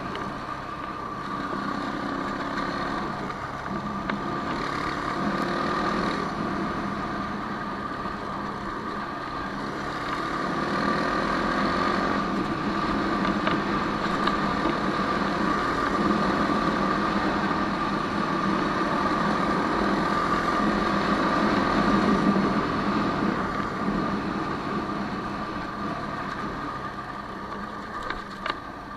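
Quad bike engine running steadily as it rides along a dirt track. It gets louder about a third of the way in and eases off near the end.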